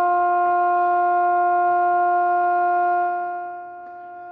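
Steady tone with a hum of overtones from a Cobra 29 WX NW ST CB radio's speaker, receiving the signal generator's modulated test signal on channel 40, which shows the receiver is working. About three seconds in it drops to a lower level as the volume is turned down.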